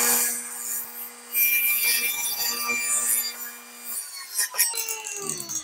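Table saw running and crosscutting a wooden picture-frame piece on a sled: a steady motor hum under the noise of the blade in the wood. About four seconds in the saw is switched off, and the blade winds down with a falling whine.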